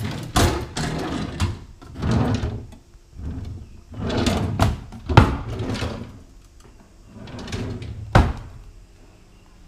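Kitchen cabinet drawers sliding open and shut with a scraping rumble, each closing with a sharp knock; the loudest knocks come about five seconds in and again about eight seconds in.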